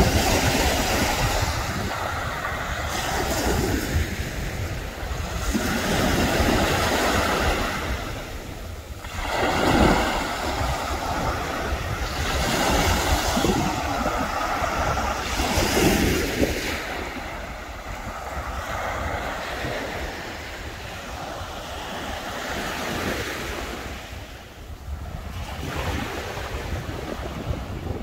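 Baltic Sea surf breaking on the shore, swelling and falling back every few seconds, with wind rumbling on the microphone.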